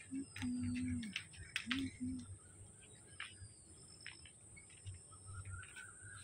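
Outdoor evening ambience: birds chirping now and then and a steady high-pitched insect drone. Two brief low calls stand out in the first two seconds.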